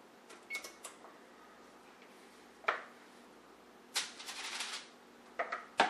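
A wooden spoon knocking and scraping against a plastic mixing bowl as a sticky cheese dough is scraped out onto parchment paper: scattered light clicks and knocks, with a longer scraping rustle about four seconds in.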